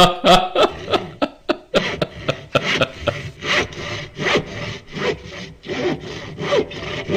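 Repeated rasping strokes, about three a second in an uneven rhythm.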